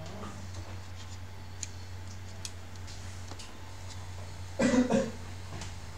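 Faint clicks of laptop parts being handled over a steady low hum, and a person's brief, loud vocal sound, about like a cough, a little past four and a half seconds in.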